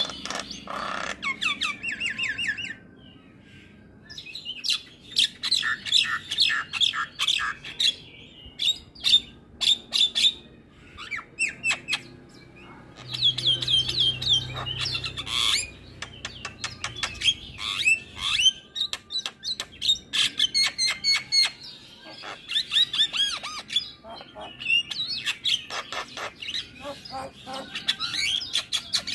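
Javan myna (jalak kebo) singing a long, varied song of rapid chattering notes, clicks, whistles and squawks. It comes in bursts with a few short pauses.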